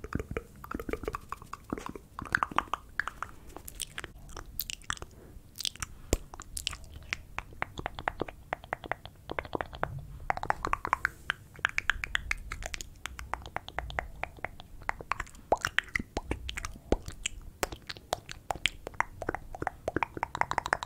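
ASMR mouth sounds made close to the microphone: a rapid, uneven run of wet clicks and smacks from the lips and tongue.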